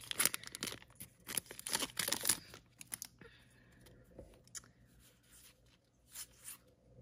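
Wrapper of a Topps Gypsy Queen baseball card pack crinkling and tearing as it is pulled open, a dense run of rustles over the first three seconds. Then a couple of soft rustles near the end as the cards are handled.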